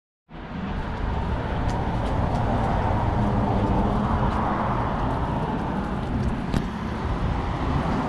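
Steady road traffic noise with a deep rumble and a few faint clicks.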